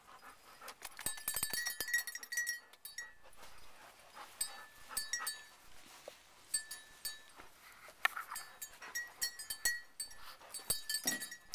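Hunting dog's collar bell jingling and clinking in uneven bursts as the dog moves.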